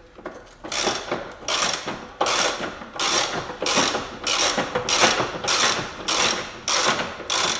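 Ratchet wrench clicking in repeated back-and-forth strokes, about one and a half a second, as it turns out a suspension control arm bolt that has just broken loose.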